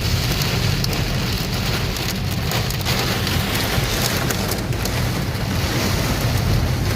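Heavy rain pouring down in a windstorm: a steady, even rush of rain with a strong low rumble of wind under it.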